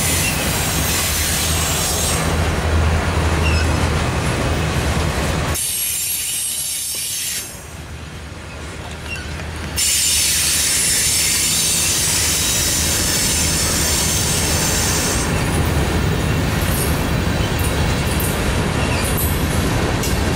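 Freight cars of a manifest train rolling past close by, their steel wheels rumbling and squealing on the rails. The sound drops quieter for about two seconds near the middle, then comes back abruptly at full level.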